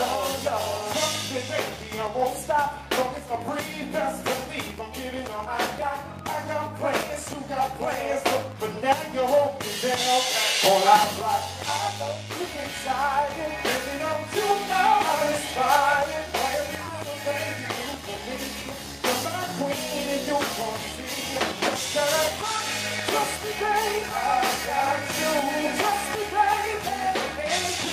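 Live band performance: a male vocalist singing over a drum kit and electric guitars.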